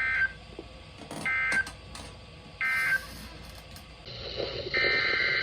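NOAA Weather Radio SAME digital data bursts: three short raspy bursts about a second and a third apart, the end-of-message code that closes an alert. Static rises, and a longer burst starts near the end, the first burst of the next alert's header.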